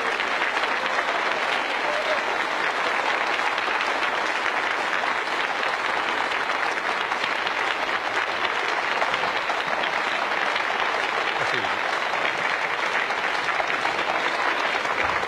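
Studio audience applauding: a long, unbroken round of clapping.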